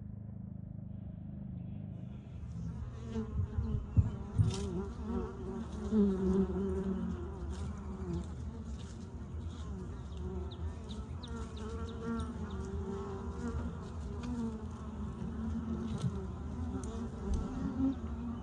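Honeybees buzzing as they fly to and from the hive, single bees passing close with wavering buzzes over a low rumble. A couple of sharp knocks about four seconds in.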